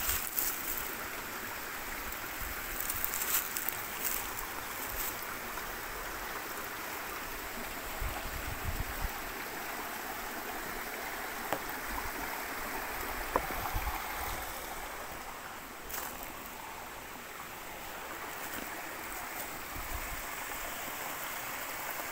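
Shallow woodland stream running and trickling over stones, a steady watery rush.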